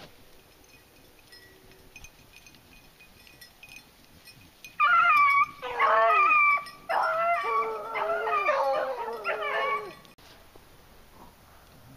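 Beagles baying on a cottontail rabbit's trail, several dogs' voices overlapping. The baying starts about five seconds in with a short cry, runs on without a break and stops about two seconds before the end.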